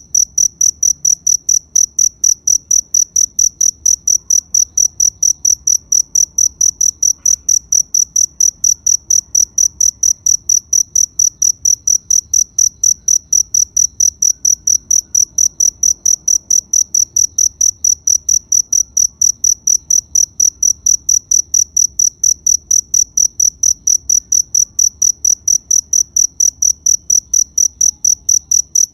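A cricket chirping steadily in a regular, unbroken rhythm of about three high-pitched chirps a second.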